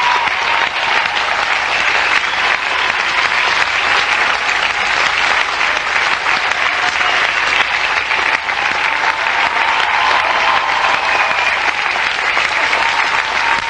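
Theatre audience applauding: dense, steady clapping that carries on without a break.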